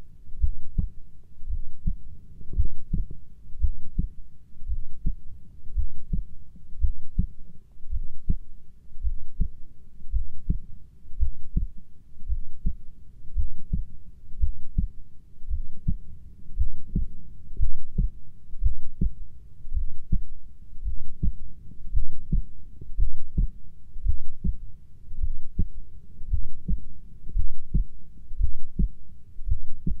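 Heartbeat recording: steady, rhythmic low double thumps at about one beat a second.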